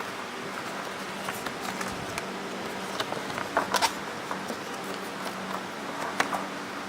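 Small clicks, taps and light rustles of packaging being handled, loudest in a short cluster just past the middle and once more near the end, over a steady low hum.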